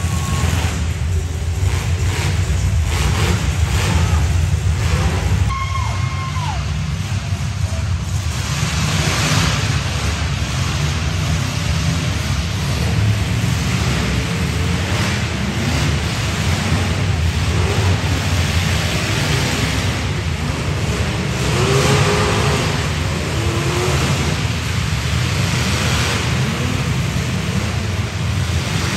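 Several demolition derby cars' engines running and revving together in an indoor arena.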